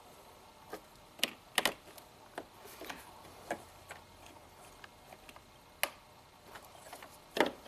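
Scattered light clicks and taps, about seven irregularly spaced over several seconds, from hands handling the wiring harness and test-light leads during a tug test on the wire.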